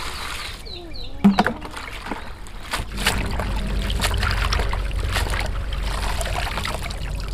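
Water poured from a plastic scoop into a plastic basin of chaya leaves, a sharp knock about a second in, then hands swishing and lifting the leaves through the water with repeated splashing and dripping.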